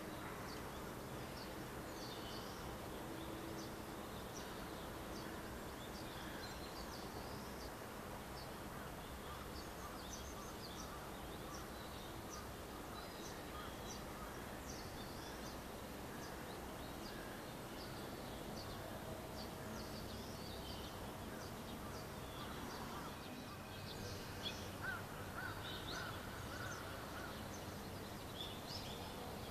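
Small birds chirping, many short high calls over a faint steady background hum, busier toward the end.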